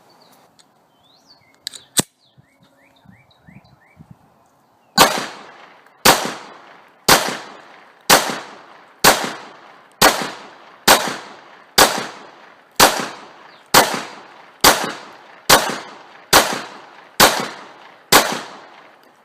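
Glock 19 9mm pistol firing fifteen shots at a steady pace of about one a second, each with a short ringing echo. A couple of sharp clicks come a few seconds before the first shot.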